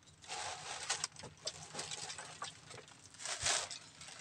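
Soft rustling and scraping with a few light clicks, twice swelling briefly: people eating rice and grilled fish by hand off plates on a wooden table.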